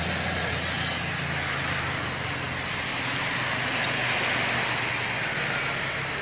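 Road traffic on a wet road: tyres hissing through standing water as cars pass. Under the hiss is a low engine hum, which thins out about halfway through.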